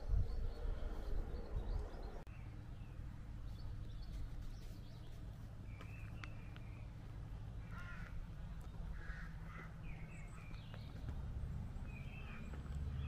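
Crows cawing, a scatter of short harsh calls that grow more frequent in the second half, over a steady low rumble.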